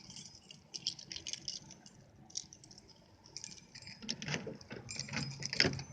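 A bunch of keys jingling and clicking as they are picked up and handled, with heavier knocks from about four seconds in.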